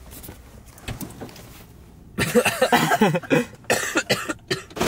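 A person coughing repeatedly, a burst of coughs starting about two seconds in.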